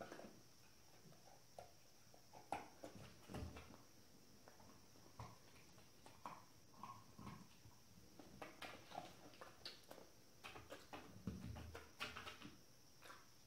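Near silence with faint scattered clicks and a few soft bumps, from a dog taking treats from a hand and shifting its paws on an inflatable balance dome.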